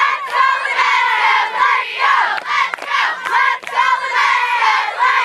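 Crowd of teenage girls, cheerleaders among them, screaming and cheering together in loud, high-pitched voices that rise and fall in repeated shouts.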